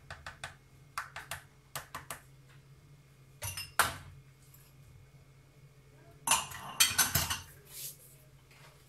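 A whisk clicking against the side of a bowl as batter is stirred, then a louder knock a few seconds in. A burst of kitchen clatter follows, dishes and utensils knocking together for about a second, about two-thirds of the way through.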